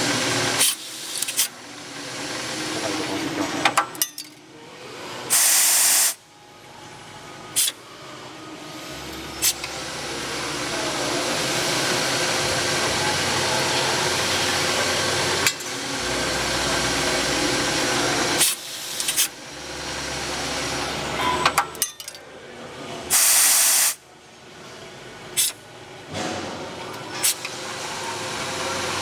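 JY-1525/JY-2025 cam-type automatic lathe with automatic bar loading running through its machining cycles: a steady machining hiss builds up between sharp clicks and knocks of the loading mechanism. A loud hiss lasting about a second comes about five seconds in and again near the end, the cycle repeating roughly every 18 seconds.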